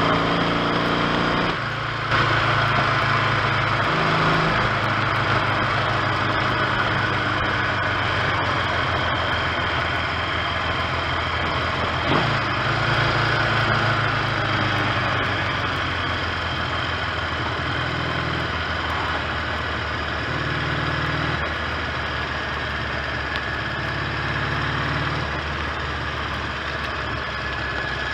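1970 Triumph T100C's 500 cc parallel-twin engine on the move: revving up over the first second and a half, dropping as a gear is changed, then running at a steady speed with small shifts in pitch.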